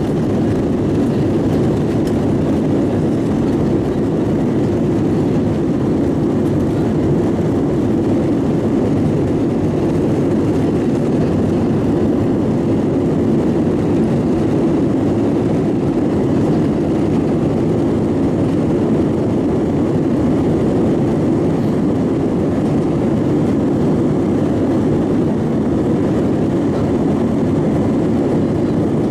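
Airbus A320 jet engines and airflow heard from inside the rear passenger cabin during takeoff or climb: a loud, steady roar with no change in level.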